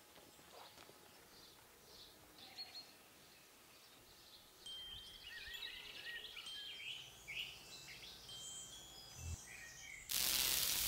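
Small birds chirping and whistling over faint outdoor background noise, with a couple of soft footsteps at the start. Near the end a loud, steady rushing noise cuts in suddenly and drowns everything else.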